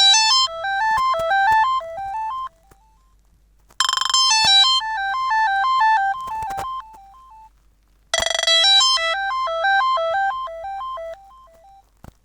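A Fly FS458 Stratus 7 smartphone playing one of its original ringtones through its speaker. The ringtone is a quick electronic melody of rapidly alternating notes. It starts three times, about four seconds apart, and each time fades away.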